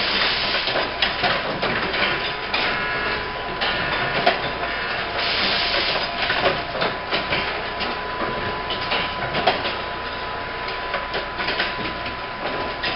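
Automatic insulin syringe assembly machine running: continuous mechanical clatter with many sharp clicks and a steady high-pitched tone. Bursts of compressed-air hiss from its pneumatics come right at the start and again about five seconds in.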